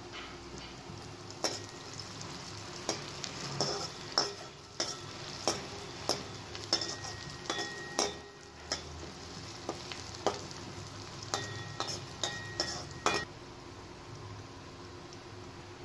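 Sliced shallots, green chillies and pandan leaf sizzling in oil in a stainless steel wok, while a metal ladle stirs them, scraping and clinking against the pan in repeated sharp strokes. The ladle strokes begin about a second and a half in and stop a couple of seconds before the end, leaving only the sizzle.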